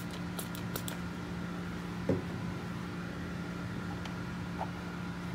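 Handling of 3D-printed plastic cowl parts: a few light clicks in the first second and a soft knock about two seconds in, over a steady background hum.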